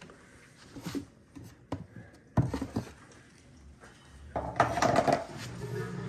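Knocks and clatter of a plastic snake-rack tub being handled, with a sharp knock about two and a half seconds in and a scraping rattle of plastic near the end.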